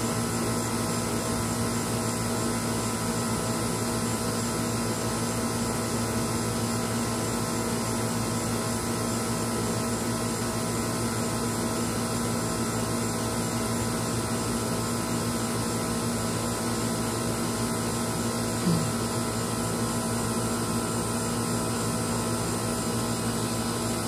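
A steady machine hum made of many held tones, unchanging throughout, with one brief low blip about three-quarters of the way through.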